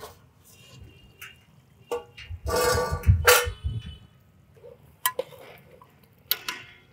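A steel plate used as a lid is lifted off an aluminium cooking pot with a scrape and a ringing metallic clang, about two and a half to three and a half seconds in. Before and after it come a few sharp clinks of metal utensils against the pot.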